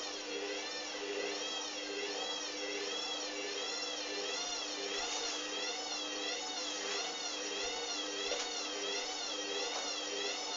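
Hoover Dynamic washing machine running, its motor giving a steady whine that wavers up and down about twice a second, over a low steady hum.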